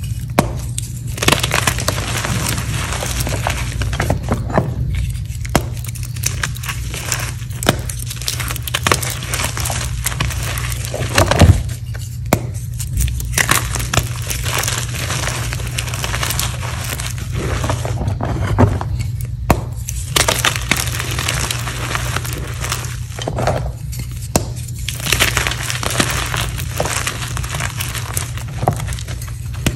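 Blocks of reformed gym chalk mixed with glitter are crushed and crumbled between the hands, making dense, irregular crunching and crackling. There is one sharp, loud crack about eleven seconds in, all over a steady low hum.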